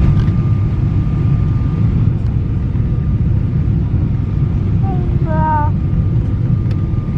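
Steady low roar of airliner cabin noise, jet engines and airflow heard from inside the cabin during the approach and landing, with a faint steady whine. A brief voice-like sound about five seconds in.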